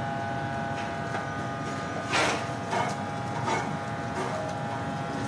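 Steady hum of takeaway kitchen machinery with a high, even whine. A short rustle about two seconds in, and two fainter ones soon after.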